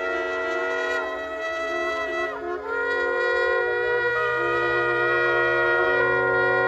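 Several shofars blown together in long, overlapping held blasts. The notes bend and break and new blasts start, about two and a half seconds in and again around four and six seconds.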